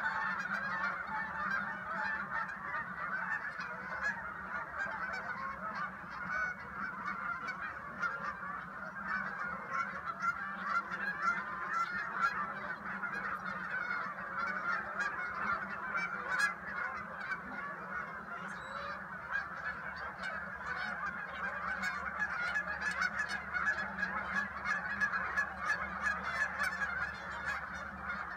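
A large flock of geese honking in flight, many birds calling over each other in a dense, unbroken chorus.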